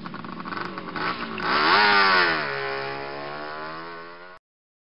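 Motorcycle engine idling, then revving once: the pitch rises to a peak about two seconds in and drops back to a steady idle before the sound cuts off suddenly near the end.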